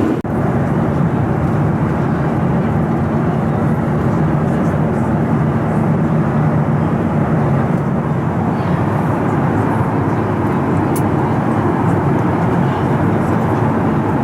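Steady cabin roar of a Boeing 737-900ER in cruise: airflow and engine noise heard from inside the passenger cabin, dipping briefly just after the start.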